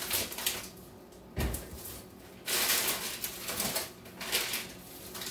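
Off-camera kitchen handling noises: a dull thump a little over a second in, then a few seconds of rustling and clatter.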